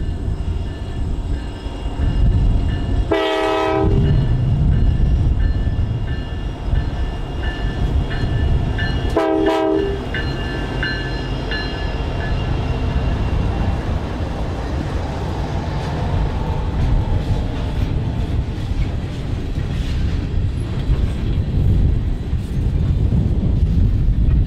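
Freight train hauled by diesel locomotives running past with a steady low rumble, and two short horn blasts, the first about 3 seconds in and a shorter one about 9 seconds in.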